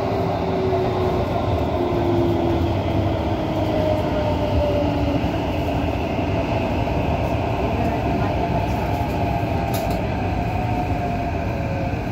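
Metro train running at speed through a tunnel, heard from inside the carriage: a steady rumble of wheels on rail, with an electric motor whine whose tones slowly shift in pitch.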